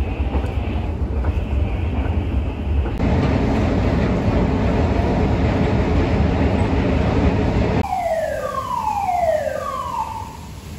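Steady mechanical rumble of a running metro escalator. Near the end a siren-like alarm sounds three falling tones, each under a second long.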